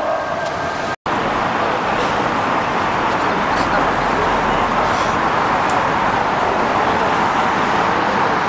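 Steady noise of busy city road traffic, with a brief cut to silence about a second in.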